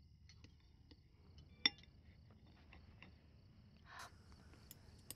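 Cutlery clinking softly against plates during a meal, with one sharper ringing clink just under two seconds in, over faint room tone.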